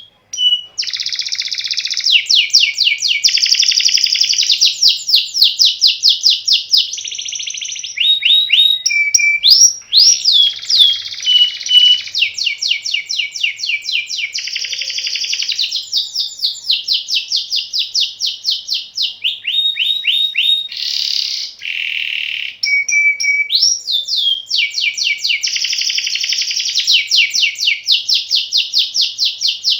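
Domestic canary singing continuously in long rolling trills: fast runs of rapidly repeated notes, broken by quick up-and-down sliding notes.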